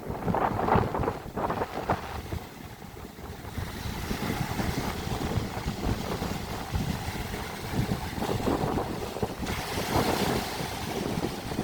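Sea waves washing in, with wind buffeting the microphone. The noise surges and eases, loudest in the first second or so.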